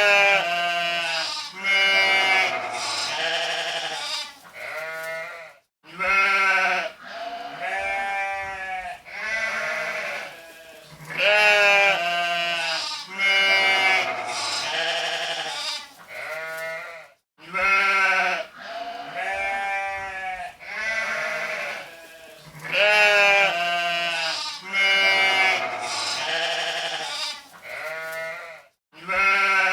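Sheep bleating over and over, one wavering, quavering bleat after another with hardly a pause. The sound cuts out briefly twice.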